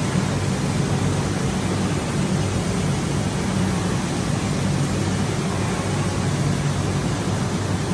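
Water flowing through a flow-meter test rig's pipes at about 57 cubic metres an hour, a steady rushing noise with a low hum underneath.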